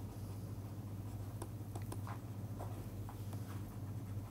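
Faint taps and scratches of a stylus writing on a tablet screen, over a steady low hum.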